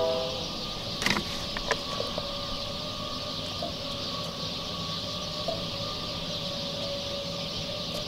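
Raw potato slices being set by hand into a cast-iron Dutch oven, with a few light clicks about one and two seconds in. Under them runs a steady hiss and a faint steady hum.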